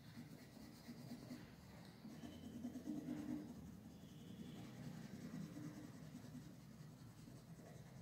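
Coloured pencil scratching faintly on paper in continual shading strokes, a little louder about three seconds in.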